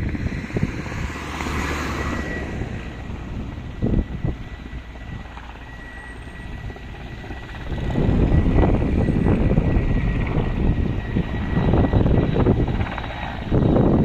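Firefighting helicopter flying, its rotor and engine noise a low rumble that grows loud about eight seconds in.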